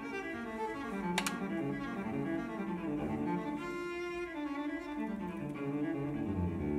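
Background music: a solo cello playing a slow melody, one note after another, with a single sharp click about a second in.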